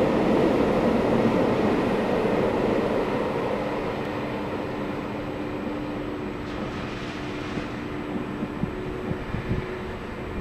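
Freight train of covered wagons rolling on a curved track, a steady rumble of wheels on rails that fades away as the last wagons pass.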